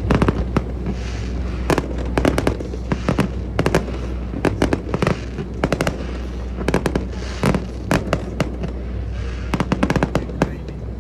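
Fireworks bursting overhead: a rapid run of sharp bangs and crackles, coming in clusters every second or so, over a steady low rumble.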